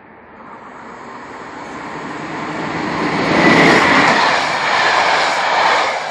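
Locomotive-hauled passenger train passing close by at speed: the rumble and rush of wheels on rail build as it approaches and are loudest as the coaches go past, then start to fade near the end.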